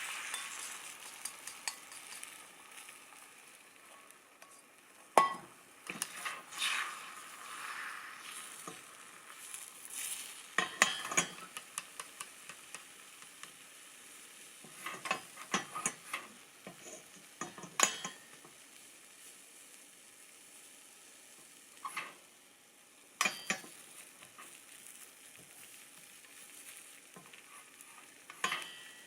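Food sizzling in a frying pan, with scattered sharp taps and short scrapes of a cooking utensil against the pan. The sizzle is loudest at the start.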